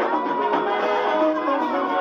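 Live ohangla band music played loud through PA speakers, with a melodic lead line running over it. It comes through thin, with almost no bass.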